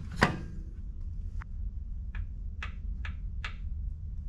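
A knock, then about five short, sharp clicks and taps, as an AC compressor line fitting is handled and set against a freshly notched frame rail to check its clearance. A steady low hum runs underneath.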